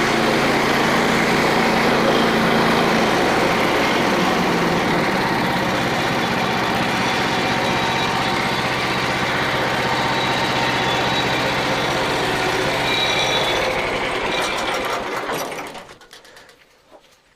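Frontier OS27 portable band sawmill running, its engine and band blade going steadily, then shut off and running down to a stop near the end.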